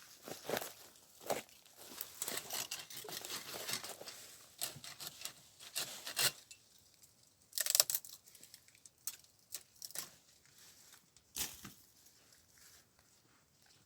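Dry wheat stalks rustling and crackling in irregular bursts as they are handled during a hand harvest, with a sharper crunch about eight seconds in. It fades to scattered faint rustles near the end.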